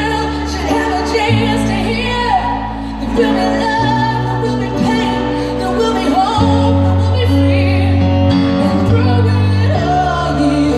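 Live piano ballad: a woman singing over held piano chords that change every couple of seconds, played through a concert PA.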